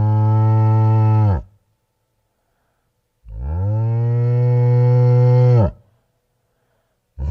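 Long, low moo calls, each held at a steady pitch and dropping away as it ends. One finishes about a second and a half in, a second lasts about two and a half seconds in the middle, and a third begins right at the end.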